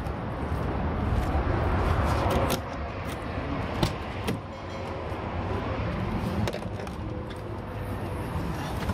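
Steady low rumbling noise with handling rustle on a handheld phone microphone outdoors, broken by a few sharp clicks, the loudest about four seconds in.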